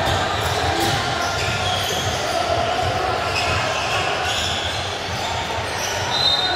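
Indoor basketball stadium ambience: many voices chattering while basketballs bounce and sneakers squeak on the hardwood courts, all echoing in the big hall. A short, sharp high squeak stands out about six seconds in.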